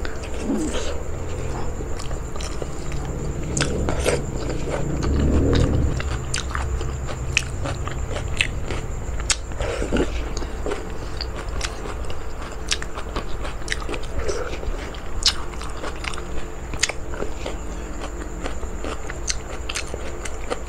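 A person eating with the microphone close to the mouth: chewing and biting, with many short, irregular mouth clicks.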